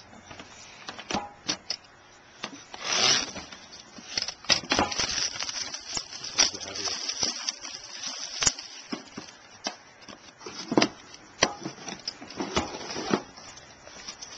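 Clear plastic shrink-wrap being torn and peeled off a sealed trading-card box: crinkling and crackling plastic with scattered clicks and taps as the box is handled.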